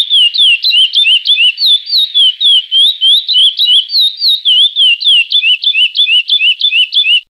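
Curió (chestnut-bellied seed-finch) singing the 'Praia Clássico' song: a fast, unbroken run of clear whistled notes, several a second, each gliding up or down in pitch, stopping suddenly near the end.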